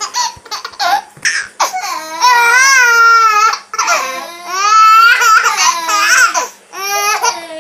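A toddler laughing in loud, high-pitched squeals: a few short bursts at first, then two long drawn-out squeals of over a second each, and a shorter one near the end.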